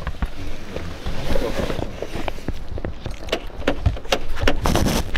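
Clicks, knocks and rustling of people climbing out of a car, the door open and a bag and the camera being handled, with a louder rustling burst near the end.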